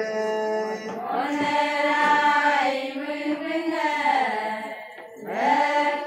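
Ponung, the Adi dance song: a group of voices chanting together in unison with long held notes. The singing dies away briefly about five seconds in, then starts again.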